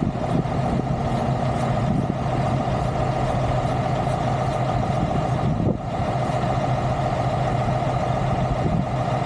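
A heavy engine idling steadily, with a faint regular ticking over it and a brief drop in level a little past halfway.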